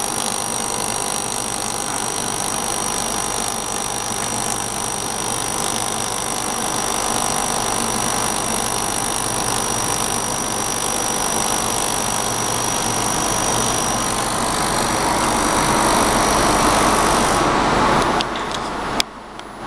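Stainless steel sink laser welding machine running during a weld: a steady machine hum with hiss and a few constant tones. Near the end it drops away, with a few clicks.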